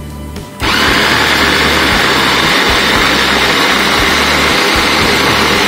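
Electric mini food chopper switched on about half a second in, its motor whirring steadily at high speed as the blades grind chilies, tomatoes, shallots, garlic and ginger into a wet spice paste.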